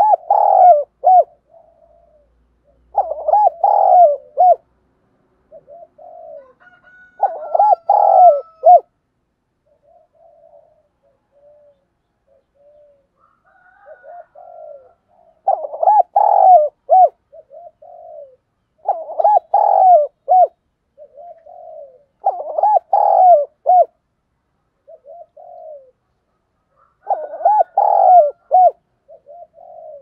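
Spotted dove cooing: seven loud phrases of several quick notes each, a few seconds apart, with softer single coos between them and a pause of about six seconds near the middle.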